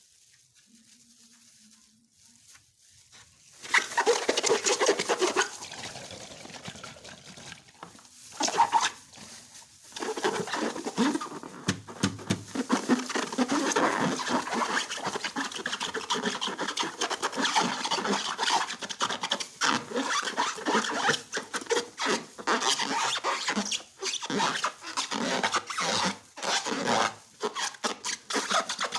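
Slime being mixed and worked, giving many quick, irregular sticky crackles that become dense and continuous from about ten seconds in, after a near-quiet start.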